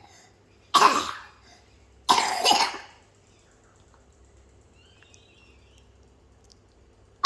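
Two coughs, the first about a second in and a longer second one just over a second later.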